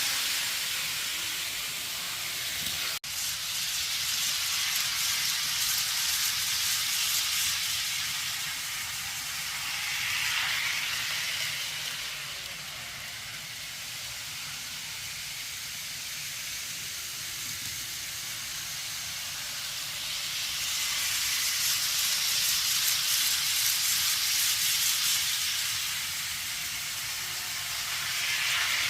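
N-gauge model trains running on the track: a steady hissing whir of wheels and motors that swells and fades as trains pass close. The sound drops out briefly about three seconds in.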